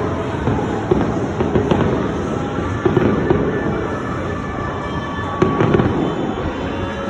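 Many New Year fireworks and firecrackers going off at once: a dense, continuous crackle of bangs, with sharper, louder bangs about one, three and five and a half seconds in.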